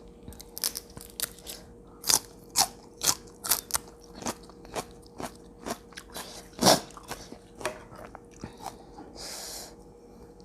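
A person chewing crunchy food close to the microphone: a quick run of sharp, irregular crunches with a few louder bites, and a short soft hiss near the end.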